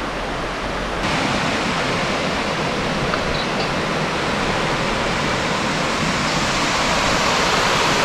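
Mae Sa Waterfall's shallow cascades rushing steadily over granite rock slabs, getting a little louder about a second in.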